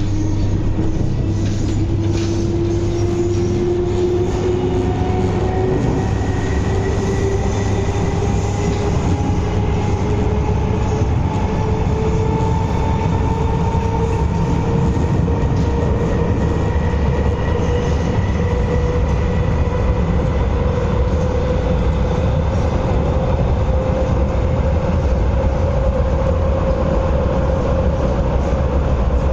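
MTR East Rail Line MLR electric train heard from inside the carriage while accelerating. Its motor whine climbs steadily in pitch over a constant rumble of running noise.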